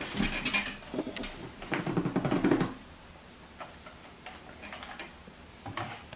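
A red plastic cup being handled by a small child: a flurry of knocks and handling noise in the first few seconds, then a few isolated light ticks.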